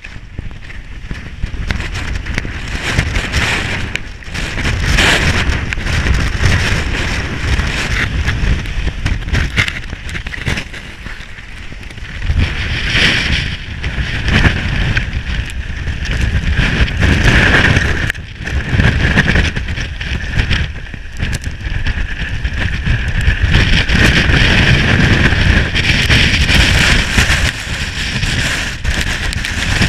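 Gale-force mountain wind buffeting the camera's microphone: a loud, continuous rush and rumble that rises and falls in gusts.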